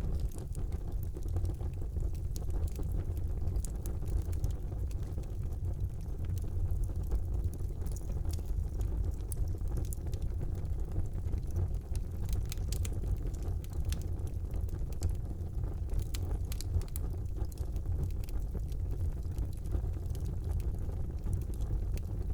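Wood fire burning in a fireplace: a steady low rumble from the flames with frequent sharp crackles and pops of burning wood scattered throughout.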